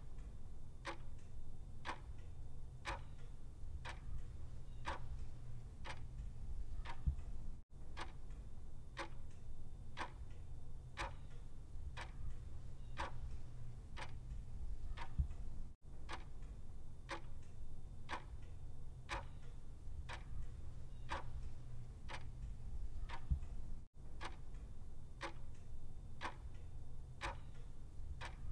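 Clock-style ticking of a countdown timer: even, regular sharp ticks over a steady low hum, broken by a brief dropout about every eight seconds.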